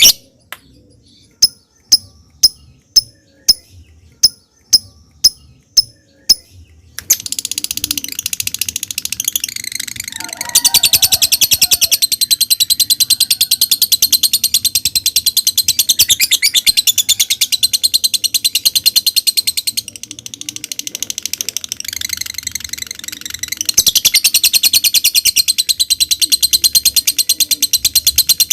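Lovebird calling: sharp, separate 'ngetik' ticks about twice a second for the first six seconds. It then breaks into a long, loud 'ngekek', a very rapid high-pitched chattering trill that falters briefly partway through and then carries on.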